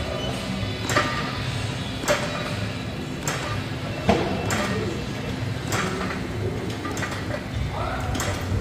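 Plate-loaded lying leg curl machine knocking and clanking with the reps, with sharp knocks roughly a second apart over a low steady hum.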